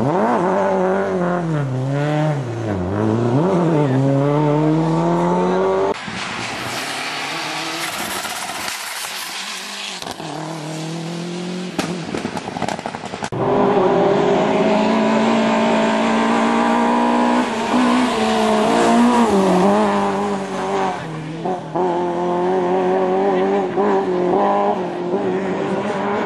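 Lada rally car engines revving hard on a stage. In the first few seconds the pitch dips and climbs as a car slides through a bend and accelerates away. A rushing noise fills the middle stretch, and then another car approaches at high revs, its pitch shifting with gear changes.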